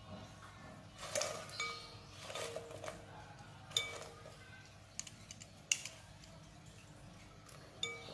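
Metal wire strainer clinking against a glass bowl as fried cassava sticks are tipped into water, with some splashing and rustling early on. About seven sharp clinks, each ringing briefly; the loudest come about 4 and 6 seconds in.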